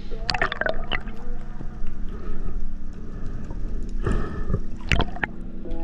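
Background music with sustained low notes and a few sharp accents.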